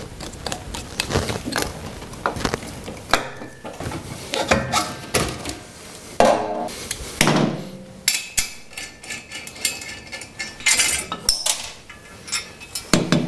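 Hand tools clinking and clicking against metal, in irregular short knocks, as the cylinder head and cylinder are unbolted and lifted off a 130 cc Simson two-stroke engine.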